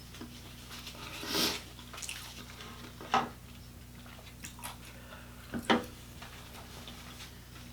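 Close-up mukbang eating sounds: chewing with a few wet smacks, one longer a second and a half in, then sharp ones about three seconds in and twice in quick succession near six seconds, over a low steady electrical hum.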